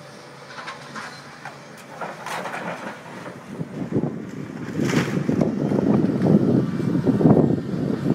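Demolition of a concrete building by a hydraulic excavator: scattered clanks and knocks of rubble being handled, swelling about halfway through into a louder, continuous clattering rumble of falling debris.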